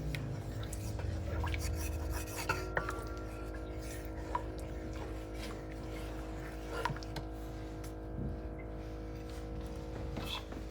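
A steady hum in a kitchen with a few light clicks and knocks scattered through it, as of utensils or cookware being handled.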